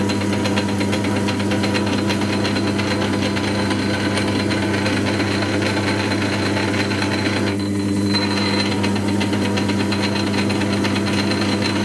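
1942 South Bend 9-inch lathe running on its flat-belt countershaft drive while boring out a belt pulley: a steady electric-motor hum with a fast, even ticking rattle from the drive.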